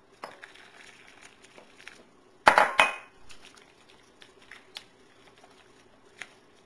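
Kitchenware handled while cornmeal is mixed with hot water in a bowl: faint clicks and scrapes, with a loud cluster of two or three sharp knocks about two and a half seconds in.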